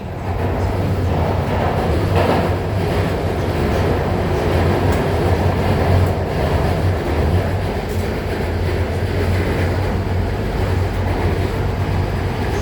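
Guangzhou Metro Line 5 linear-motor train running at speed through a tunnel, heard from inside the carriage: a steady rumble of wheels and running gear with a low hum.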